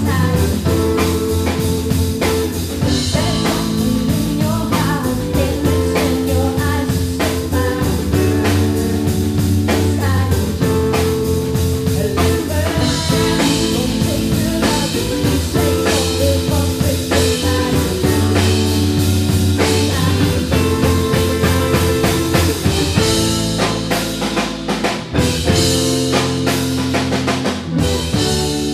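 A live band playing rock music: fast drum-kit hits over held low notes that move through a repeating chord pattern, thinning out over the last few seconds.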